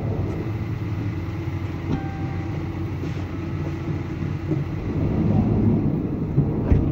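Steady hum of a passenger van's idling engine and air conditioning inside the cabin, with a sharp knock at the very end.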